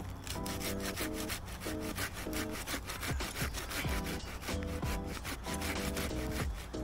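Hand saw cutting through a thin green sapling trunk near its base in quick, even back-and-forth strokes. Background music plays throughout.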